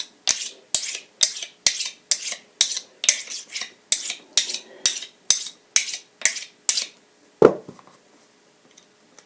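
A magnet stroked repeatedly along a steel screwdriver shaft to magnetize it: about fifteen short metal-on-metal scrapes, roughly two a second, that stop about 7 seconds in. A single low thump follows soon after.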